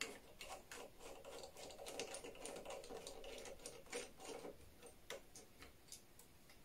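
A small screw being turned out with a precision screwdriver: a faint run of quick, irregular ticks and clicks with a soft scraping as it turns, easing off near the end.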